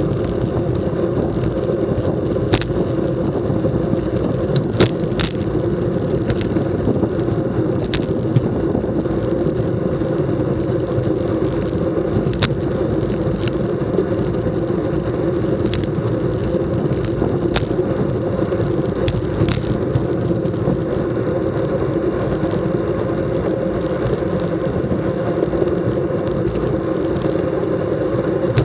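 Road racing bicycles rolling fast in a pack on a paved road: steady wind rush on a bike-mounted camera's microphone with tyre noise, broken now and then by sharp clicks and rattles.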